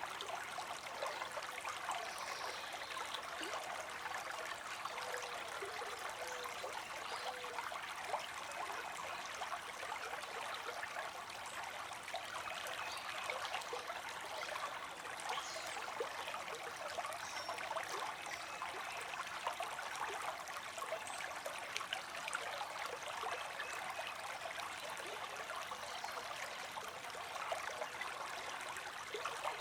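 A small creek's water streaming and trickling over stones, a steady, even babble with many little splashes and gurgles.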